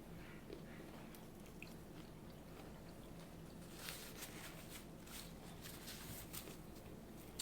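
Close-up eating sounds: chewing with wet mouth clicks and smacks, coming thickest in a run past the middle, over a faint steady hum.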